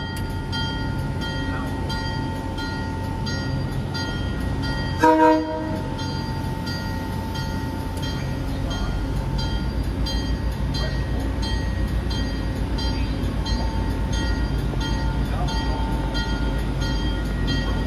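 Train at a station, running steadily, with a brief horn blast about five seconds in; the low rumble grows a little louder later on.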